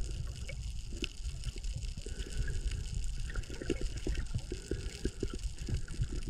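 Water sloshing heard through a submerged camera: a muffled low rumble with many small clicks and pops.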